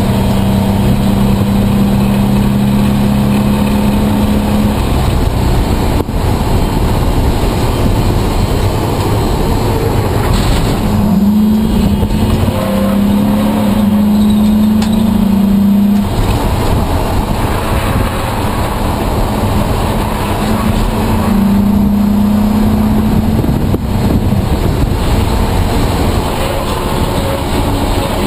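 Race car engine heard from inside the cabin, running hard at speed. Its steady high note holds for several seconds at a time and breaks off and returns several times as the driver lifts and shifts for corners.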